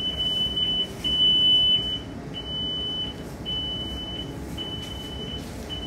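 Marine VHF radio's weather-alert alarm beeping: one high, steady beep about a second long, repeating roughly once a second, signalling an incoming weather alert. A low steady hum lies underneath.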